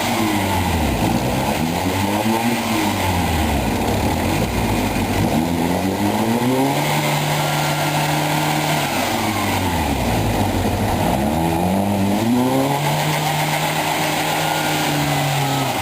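Volkswagen Iltis engine working hard on an off-road hill climb. The revs swell and fall back several times, with two stretches held steady.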